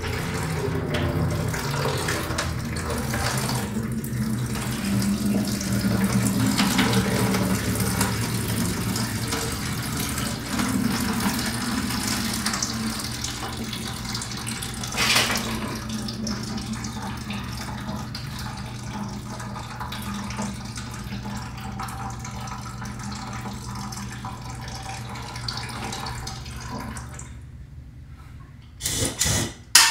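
Residual water draining out of an open copper water-heater supply pipe into a plastic bucket. It is a steady pour that slowly weakens and drops away near the end as the line empties ahead of soldering.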